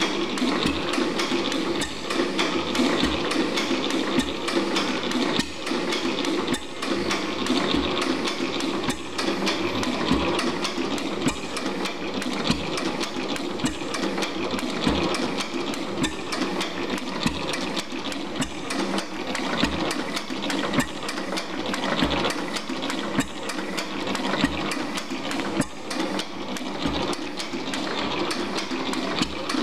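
An F.M. Watkins 4 HP stationary gas engine running. It makes a steady, rapid mechanical clatter, with short low knocks recurring throughout.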